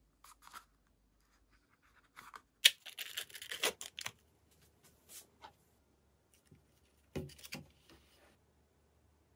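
Small handling noises: a sharp click about two and a half seconds in, followed by a second or so of rustling, then scattered light ticks and a knock with more rustling about seven seconds in.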